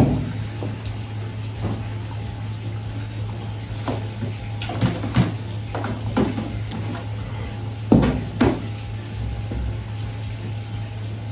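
Scattered knocks and thumps of a knife and fish being handled on a plastic cutting board during filleting of a meichidai (large-eye bream), loudest right at the start and twice about eight seconds in, over a steady low hum.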